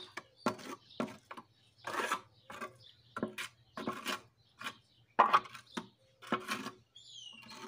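Mason's trowel scraping and spreading wet cement paste, mixed with sealer, over the inner concrete walls of a cement washtub, in short strokes about two a second.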